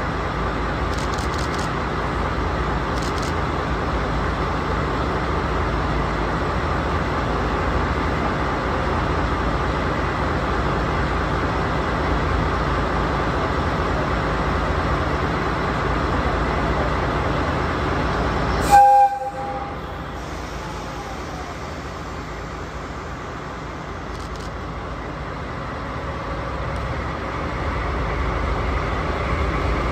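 DD51 diesel-hydraulic locomotive running steadily at the platform, then one short blast of its horn about two-thirds of the way in. After the horn the engine noise drops, then builds again near the end as the locomotive starts to pull away.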